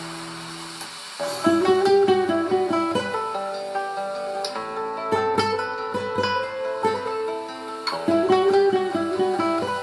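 Nylon-string classical guitar played fingerstyle in a flamenco style: a chord rings and fades, then about a second in come quick runs of picked notes, with another loud run near the end.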